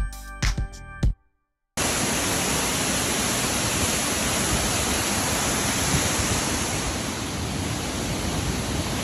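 A second of background music cuts off, and after a short gap a waterfall comes in: the loud, steady rush of water pouring over rock.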